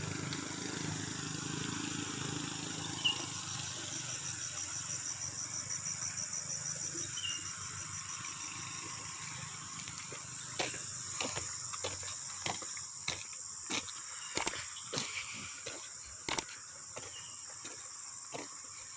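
Insects chirring in a steady, high, pulsing trill. Partway through, a run of sharp irregular clicks or knocks joins in.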